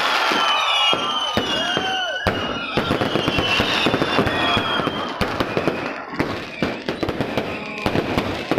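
Fireworks going off without a break: rapid bangs and crackling, with whistling shells gliding down in pitch.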